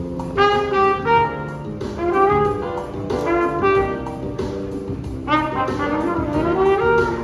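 A street musician's trumpet playing a melody in short phrases of quick notes, with brief pauses between the phrases.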